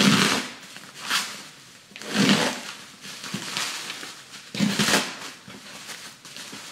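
Bubble wrap and plastic film around a cardboard box being cut and pulled open with a hand cutter: four short crinkling rips a second or two apart, with softer rustling between.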